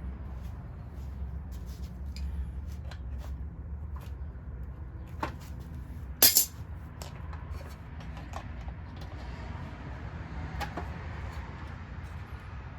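Scattered light metallic clicks and clinks of a hand truck's axle hardware and hand tools being handled while a cotter pin is worked on, with one louder sharp clink about six seconds in. A steady low hum runs underneath.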